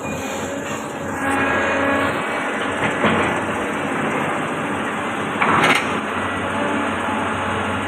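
Caterpillar 320D L hydraulic excavator's diesel engine running steadily, with a tonal hydraulic whine coming in about a second in and two sharp knocks, one about three seconds in and a louder one about five and a half seconds in.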